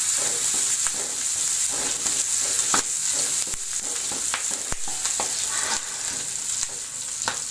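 Chopped chillies, shallots and garlic sizzling in hot oil in a metal wok, stirred with a wooden spatula that now and then knocks and scrapes against the pan.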